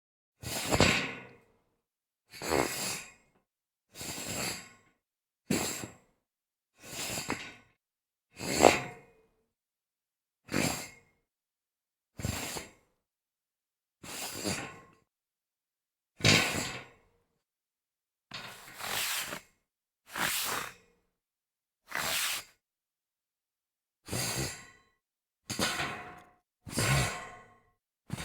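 Shoe sliding and scraping across a metal grate, repeated about sixteen times. Each slide is a short scrape lasting under a second, with silence between.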